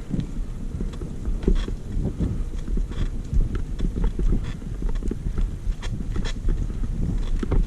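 Mountain bike riding over a rough dirt trail: a steady low rumble from the tyres with irregular knocks and rattles from the bike as it goes over bumps.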